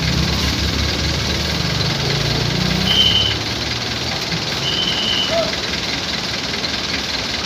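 Engines of trucks and cars idling in stopped traffic. A heavy engine close by rises a little in pitch about two to three seconds in, then drops away. Two short high-pitched tones sound around three and five seconds in.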